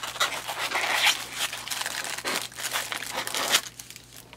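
Tissue paper crinkling and styrofoam packing scraping as a figurine is pulled out of its foam insert, with many small crackles; it dies down near the end.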